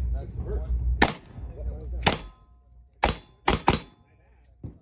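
.22 caliber gunshots: five sharp reports about a second apart, the last two close together, each with a short high metallic ring. A fainter sharp crack comes near the end.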